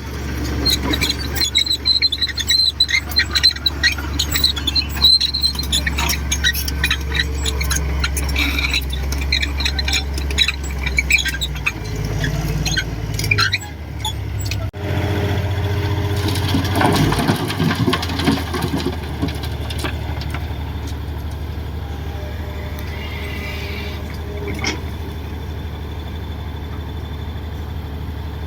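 Komatsu D58 crawler bulldozer's diesel engine running, with the high squeal and clatter of its steel tracks through the first half; after an abrupt change about halfway, the engine runs on more steadily with little squealing.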